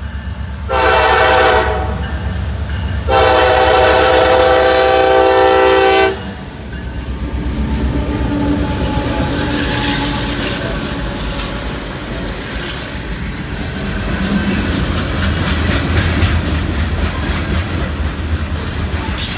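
CSX freight train at a grade crossing: the lead diesel locomotive's air horn gives a short blast, then a long one of about three seconds, as the crossing warning. The locomotives' engines then run past, followed by covered hopper cars rolling by with clickety-clack from the wheels and occasional squeaks.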